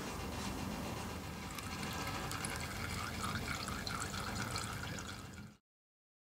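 Used engine oil draining from a scooter engine's drain hole, a steady trickling stream splashing into a catch container. It cuts off suddenly near the end.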